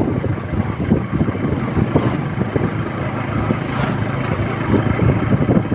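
Strong wind buffeting the microphone of a moving motorcycle: an uneven low rumble over the running engine and road noise.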